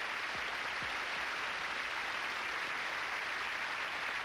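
Large audience applauding steadily in a hall.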